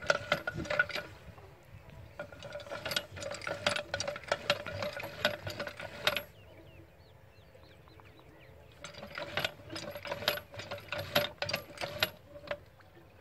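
Old metal hand pump worked by its lever handle: rapid squeaking and clanking strokes in runs, with a pause around the middle, while water is poured in to prime it.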